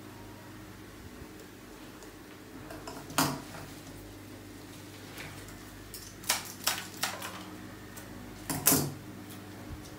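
Scattered sharp clicks and light clinks of flower-arranging work, stems and hand tools handled on the worktable: one about three seconds in, a quick run of four a little past halfway, and the loudest pair near the end, over a steady low hum.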